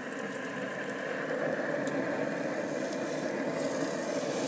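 Steaks sizzling on the hot grill grates of a Traeger Ranger pellet grill with the lid open, over a steady hum. The sizzle grows gradually louder, with a few faint crackles in the first couple of seconds.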